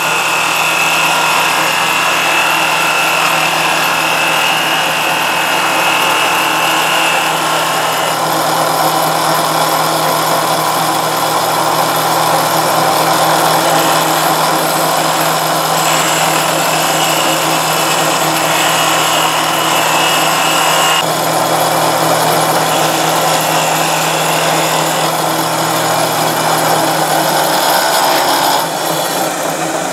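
Wood lathe running while a carbide-insert cutter on the cross slide turns a wooden spindle: a continuous hiss of wood being cut over the steady hum of the machine. The sound drops and thins near the end.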